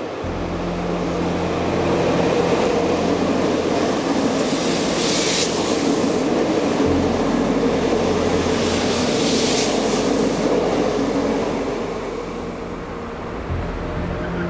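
Train running on the rails: a steady, loud rumble with a low hum under it. It swells over the first two seconds and eases off near the end, with brief hissy rushes twice in the middle.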